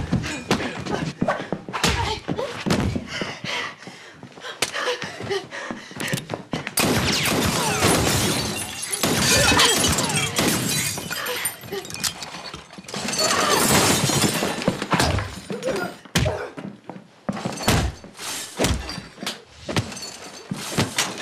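Fight sound effects: a string of blows, thuds and crashes as two people grapple and slam into walls, doors and furniture. Two longer, louder stretches of crashing and breaking, with things shattering, come about a third of the way in and again past the middle.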